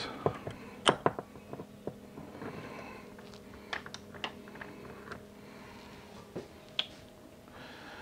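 Scattered light clicks and taps of a steel cable and needle-nose locking pliers being handled as the pliers are clamped onto the cable loop, the sharpest click about a second in.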